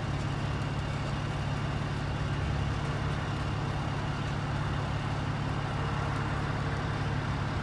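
Diesel truck engine idling: a steady, even low rumble.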